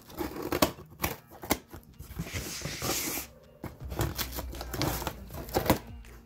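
Scissors slitting the packing tape on a cardboard shipping box: a run of quick snips and clicks, with a longer tearing rasp of the tape near the middle, and the box being handled.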